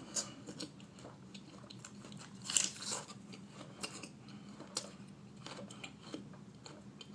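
Someone chewing crisp mustard-coated apple slices: faint, irregular crunching, with a louder crunch about two and a half seconds in.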